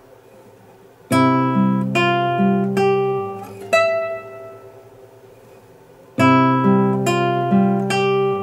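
Nylon-string classical guitar, fingerpicked. A short arpeggiated phrase over a low bass note starts about a second in and is played again about six seconds in, each time ending on a high note that is left ringing.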